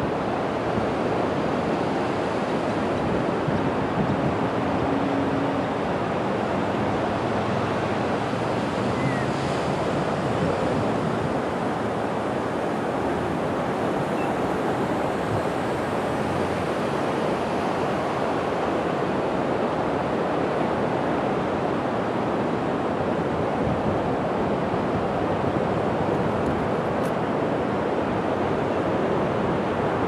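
Ocean surf breaking just offshore and washing up the shore, a steady rushing sound.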